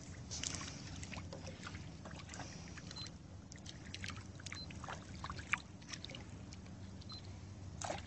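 Faint water lapping and trickling around a small boat, with scattered small drips and knocks over a steady low hum, and one louder knock or splash near the end.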